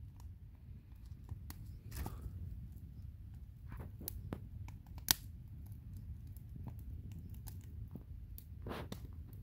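Wood campfire burning, with scattered crackles and pops, the sharpest about five seconds in, over a steady low rumble.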